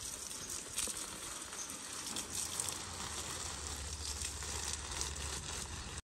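Stream of water from a hose splashing onto leafy garden plants and soil: a steady hiss with small crackles.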